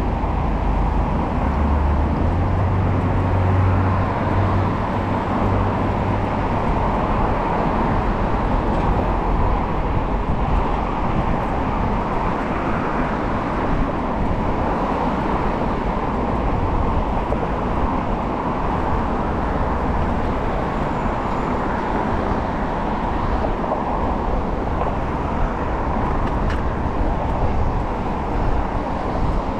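Steady city road traffic noise heard from a moving bicycle, with wind rumbling on the action camera's microphone, heaviest in the first few seconds.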